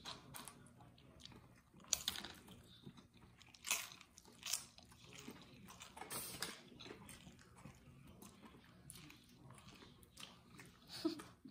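A person chewing and gnawing meat off chicken wing bones, close to the microphone, with a few sharp mouth clicks of biting spread through.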